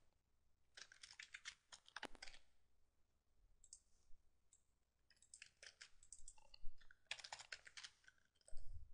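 Faint computer keyboard typing: a quick run of key clicks about a second in, then a longer run from about five to eight and a half seconds in. A short low thump comes just before the end.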